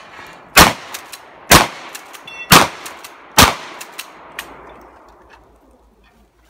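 Shotgun fired four times in quick succession at steel targets, about a second apart, each blast trailing off in echo. A brief metallic ring from a struck steel target comes between the second and third shots, with smaller clacks after the shots.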